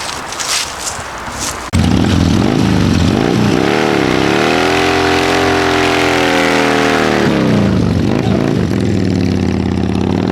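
Carbureted Harley-Davidson Twin Cam 88 V-twin of a 2001 Dyna running through S&S Grand National dual exhaust. It cuts in suddenly about two seconds in, is revved up and held high for about three seconds, then drops back to idle.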